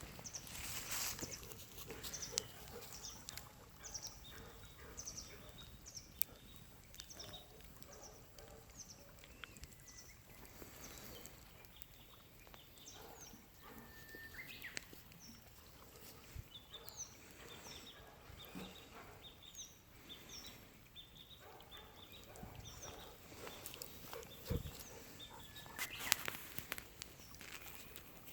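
Bonfire crackling with scattered sharp pops, while a bird calls short, high, falling chirps about once a second in the background.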